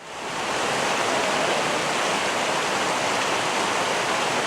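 Small coastal stream flowing: a steady rush of water that fades in over the first half second.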